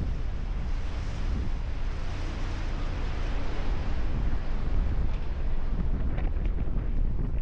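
Wind buffeting the microphone aboard a moving boat, over a steady low rumble.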